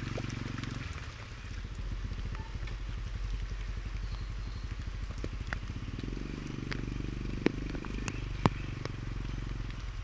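Motorcycle engine running at low revs, its pitch shifting a little in the last few seconds. Two sharp clicks come near the end.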